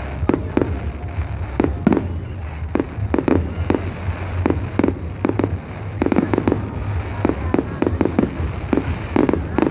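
Fireworks going off in a display: a rapid, irregular string of sharp bangs and pops, several a second, over a steady low rumble.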